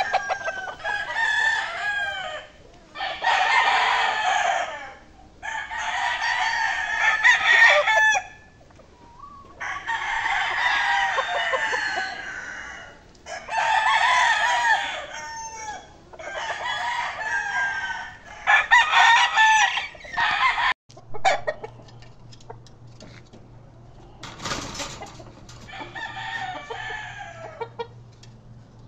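Gamecocks crowing one after another, about nine loud crows in the first twenty seconds, some overlapping. After a sudden drop it is quieter, with one fainter crow near the end over a steady low hum.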